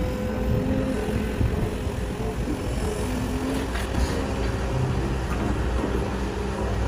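Diesel engine of a Kobelco SK250 hydraulic excavator running steadily under load while it loads earth into a dump truck.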